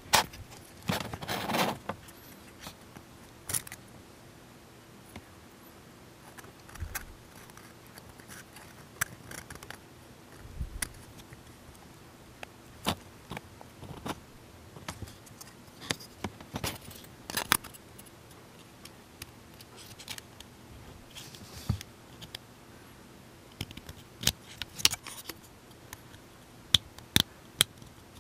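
Small plastic model-kit parts and hobby tools being handled on a work surface: scattered sharp clicks and taps, with a longer scraping rustle about a second in and a quick run of clicks near the end.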